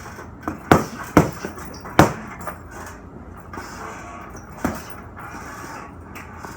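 Punches landing on a heavy punching bag: a quick run of four sharp thuds in the first two seconds, then one more thud later on.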